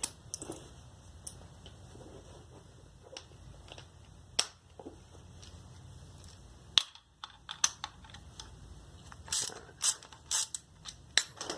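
Scattered sharp metal clicks of a socket ratchet and sockets being handled, sparse at first and bunched more closely near the end, as a bolt on a scooter exhaust is fitted and snugged up.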